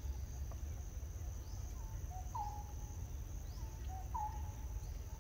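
Outdoor forest ambience: insects droning steadily at a high pitch over a low steady rumble, with a bird giving two pairs of short calls, about two and four seconds in.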